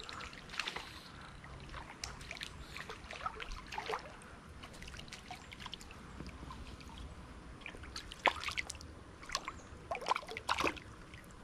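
Small splashes and drips of water close to the microphone, coming in irregular clusters of short plinks, loudest around eight and ten seconds in.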